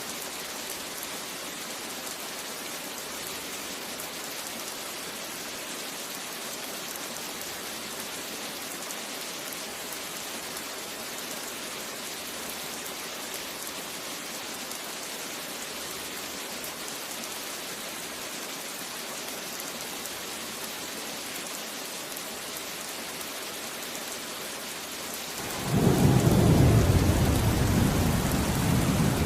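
Steady rain falling, an even hiss. A few seconds before the end, a loud thunderclap breaks in suddenly and rolls on as a deep rumble.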